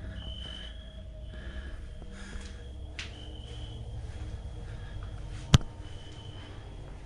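A single sharp click about five and a half seconds in, over a low steady rumble and faint, short high tones that come and go.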